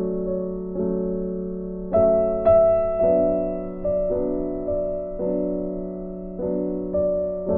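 Soft background piano music: slow notes and chords, each struck and left to fade before the next.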